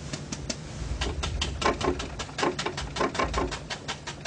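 A 2-inch paintbrush tapping straight down onto a stretched canvas: a quick, even run of soft taps, about five a second, getting louder about a second in.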